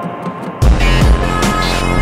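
Music: a deep bass note comes in about half a second in and holds under sustained higher tones.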